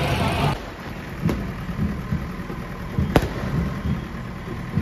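Aerial fireworks exploding overhead: three sharp bangs about a second and a half apart, the middle one the loudest, over a low rumble. A loud din of street noise cuts off half a second in.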